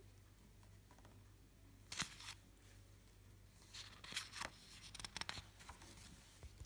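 Paper pages of a large picture book being handled and turned: a few short rustles about two seconds in and again between about four and five and a half seconds in, over a low steady hum.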